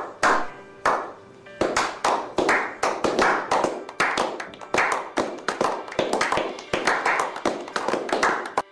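A small group of people clapping: a few slow single claps at first, building about a second and a half in to quicker, overlapping applause that stops abruptly near the end.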